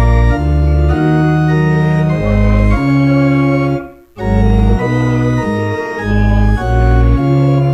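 Church organ playing a hymn in held chords over a deep pedal bass, with a brief break between phrases about halfway through.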